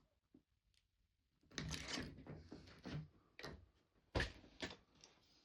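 Hand handling of tools or fittings: a run of scraping and clattering with a few sharp knocks, the loudest one about four seconds in.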